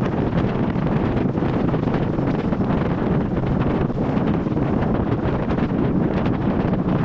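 Wind buffeting the microphone on an open fishing boat: a loud, steady rushing rumble.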